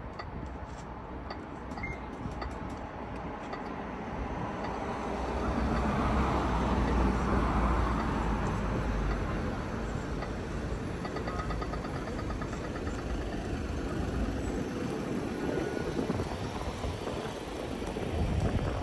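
Street noise with a motor vehicle passing, swelling to its loudest about six to eight seconds in and then easing off.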